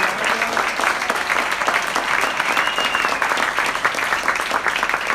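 Audience applauding: dense, steady hand clapping from a seated crowd.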